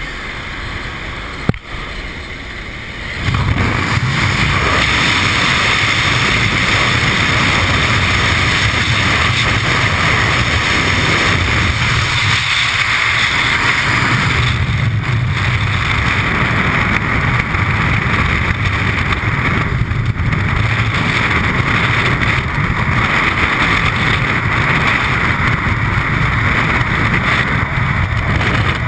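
Aircraft engine and slipstream noise at an open jump door, with a sharp click about a second and a half in. From about three seconds on, a much louder steady rush of freefall wind over the camera's microphone.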